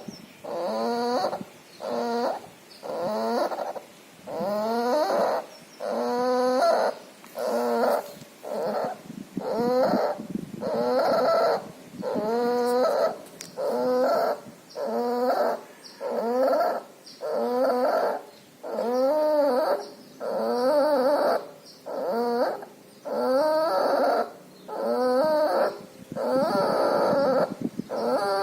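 A puppy's loud, labored breathing, each breath carrying a pitched, wavering whine, about one breath a second. The uploader puts it down to pneumonia with distemper.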